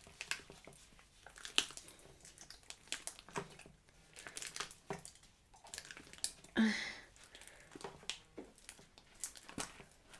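Hands kneading and stretching slime: irregular wet squelches and sticky clicking pops. One brief pitched sound, the loudest moment, comes about two-thirds of the way in.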